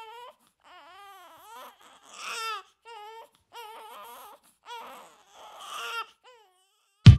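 A baby crying in a string of short, wavering wails and whimpers with brief pauses between them. A loud drum-machine beat cuts in at the very end.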